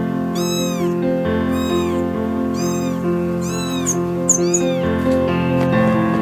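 Kitten meowing five times, about once a second, each call rising and falling in pitch, over background music.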